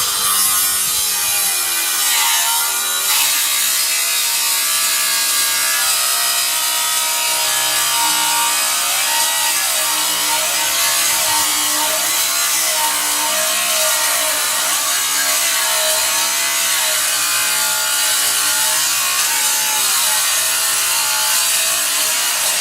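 Metabo 230 mm (9-inch) cordless angle grinder grinding aluminium, the disc biting in and the motor's pitch wavering up and down under load. Near the end it stops abruptly: the grinder's overload torque cutout, not overheating.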